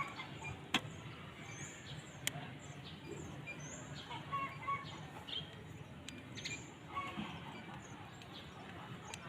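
Fiber-optic fast connector's lock clamp being snapped shut: a sharp click about a second in and another about a second and a half later. Small birds chirp repeatedly in the background.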